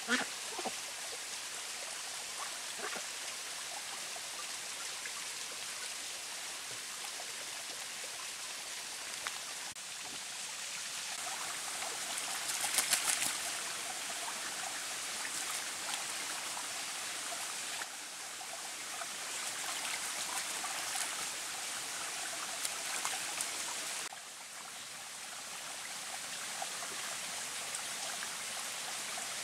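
Shallow forest stream running and trickling steadily, the water noise briefly louder about halfway through.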